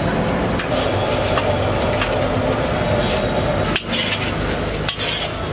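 Chopped beans and carrots sizzling in a hot oiled wok while a metal spatula stirs and scrapes them, with a few sharp clanks of the spatula against the wok.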